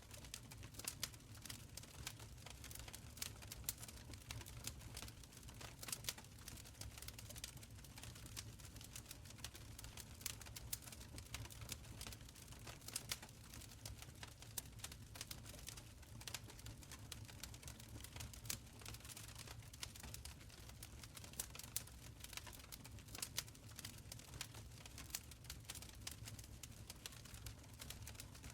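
Wood fire crackling in a stone fireplace: irregular sharp pops and snaps over a low, steady rumble of burning.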